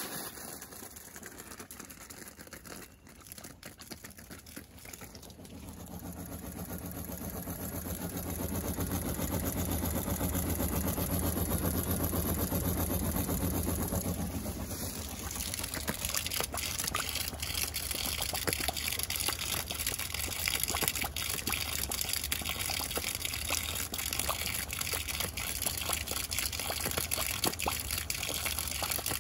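A 12-volt transfer pump runs with a low hum while water pours out in a pulsing, uneven flow rather than a steady stream. The owner believes the pulsing comes from back pressure building up inside the pump.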